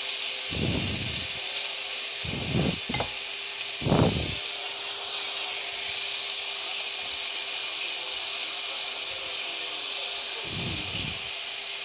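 Marinated pork and onions sizzling steadily as they fry in a nonstick pan, with a faint steady hum underneath. A few short, dull knocks come about a second in, around three seconds, more loudly at four seconds, and again near the end, as the meat is handled and turned with tongs.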